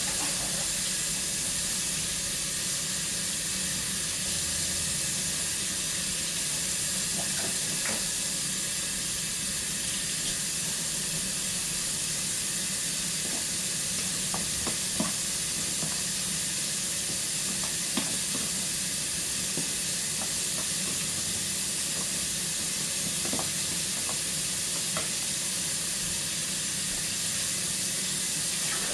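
Chicken wings deep-frying in hot oil: a steady sizzle with a few scattered small pops.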